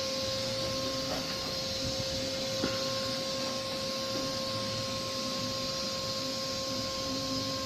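Steady electrical hum with two pure tones over an even hiss, typical of welding equipment running during P91/P92 pipe welding; a faint click about two and a half seconds in.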